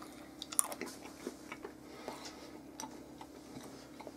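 A person biting off and chewing a piece of tough dried-meat jerky close to the microphone: faint, irregular clicks and crunches of chewing.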